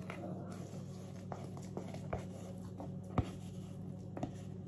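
Thick zucchini batter being scraped out of a plastic bowl into a metal baking pan: soft scraping with a handful of light clicks and taps, the sharpest about three seconds in, over a steady low hum.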